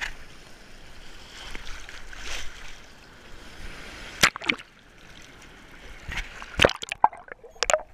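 Sea water sloshing and splashing around an action camera held down in the surf, with a few sharp splashes as water slaps the camera, the strongest about halfway through and again about two-thirds of the way in.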